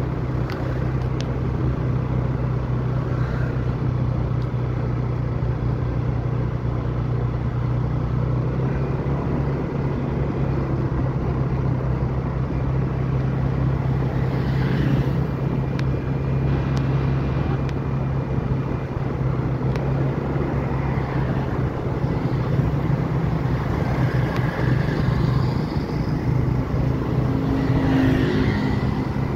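A vehicle's engine running steadily, a constant low hum with motion noise.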